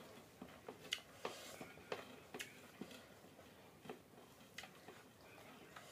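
Quiet sounds of eating rice by hand: soft, irregular clicks and ticks from chewing and from fingers working the rice on a plate.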